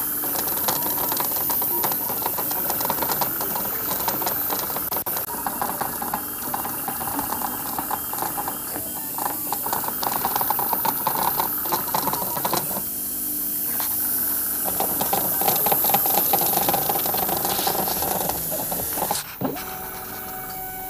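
Compressed-air airbrush hissing steadily while the stepper motors of a 3D-printed CNC airbrush rig buzz and whir, with constant quick changes as the head moves back and forth and the extruder stepper works the paint quantity. About 19 seconds in, the sound changes abruptly to a quieter, steadier hum with a clear tone.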